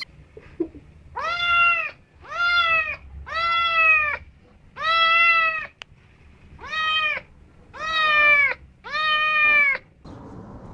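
Domestic cat meowing repeatedly: seven loud meows in a row, each rising and then falling in pitch, about one a second.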